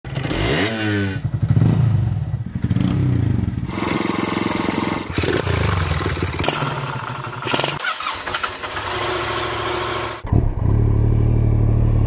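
Honda Monkey Z50J motorcycle engine revving and accelerating, its pitch rising and falling across several abrupt cuts. From about ten seconds in it runs at a steady pitch.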